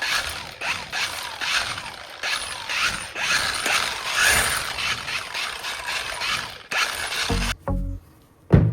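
Rhythmic mechanical scraping strokes, roughly two a second, that stop about seven seconds in; a few low plucked music notes start near the end.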